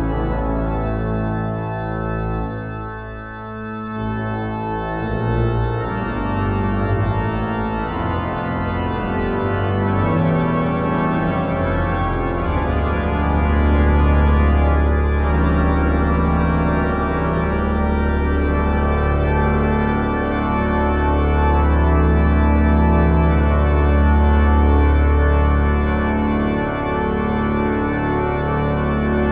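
Cathedral organ music: slow, sustained full chords, with a deep bass note that comes in about twelve seconds in and holds for most of the rest.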